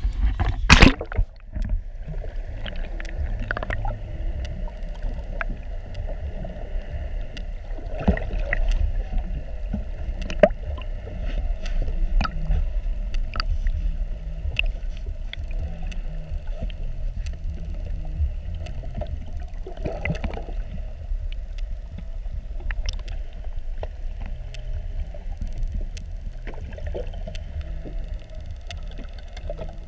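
A camera plunging into the sea with a loud splash about a second in, then underwater sound through the camera: a steady low rumble with scattered faint clicks.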